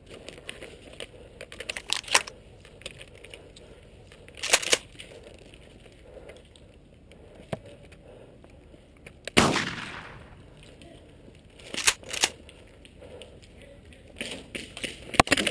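Airsoft guns firing: sharp pops scattered in small groups. The loudest shot comes about nine and a half seconds in, with a trailing hiss, and a quick run of shots follows near the end.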